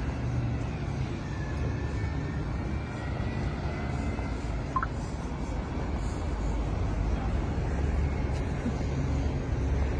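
Steady low rumble of road traffic in a town street, growing slightly louder toward the end.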